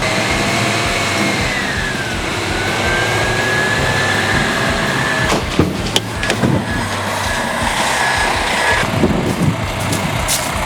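Roll-off truck running with its hydraulic hoist whining as the dumpster is tipped to dump its load. The high whine dips in pitch about two seconds in and then holds steady, over the low hum of the engine, with a few knocks and bangs around the middle.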